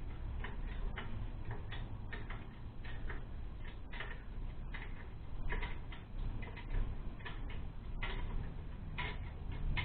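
A 10 mm spanner tightening a bolt on the exhaust: a run of light metallic clicks, a few a second with short pauses.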